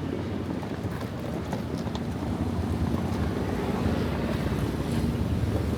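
Steady low engine rumble with wind on the microphone.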